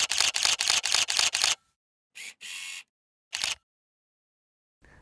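Single-lens reflex camera shutter firing in a rapid burst, about eight clicks a second for a second and a half, followed by a couple of short shutter sounds and one last click about three and a half seconds in.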